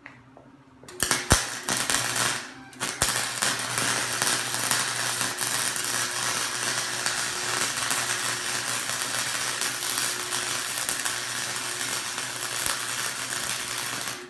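Electric arc welding on steel: a sputtering crackle that starts about a second in, stutters and breaks a few times as the arc strikes, then runs steadily before stopping sharply at the end. The arc is burning through the steel even with the welder on its minimum setting.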